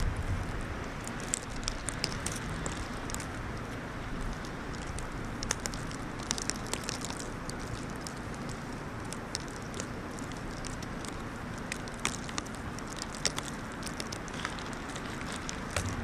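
Steady outdoor wind noise with irregular faint crackles and ticks scattered through it.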